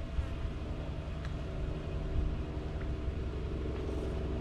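A low, steady engine hum with a few faint clicks scattered through it.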